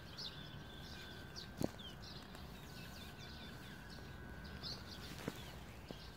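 Small birds chirping over and over, with a faint steady high tone under them. Two sharp clicks stand out, one about one and a half seconds in and a smaller one near five seconds.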